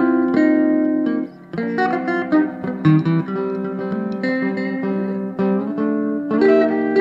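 Two Fender Telecaster rhythm parts playing together through an amplifier built around the Telecaster, one on both pickups and one on the bridge pickup. Ringing chords and picked notes, with a short drop in level about a second and a half in.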